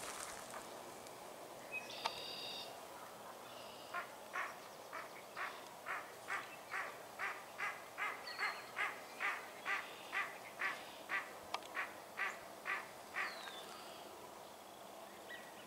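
A duck quacking in a long, even series, about two calls a second for some nine seconds, after a single call a couple of seconds in.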